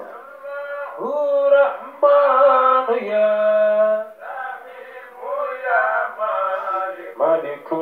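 A group of men chanting, with a lead male singer holding long, wavering notes.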